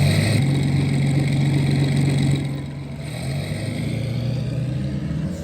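1/6-scale Armortek radio-controlled model tanks on the move: a steady low drone with a hum of upper tones above it, dropping in level a little over two seconds in.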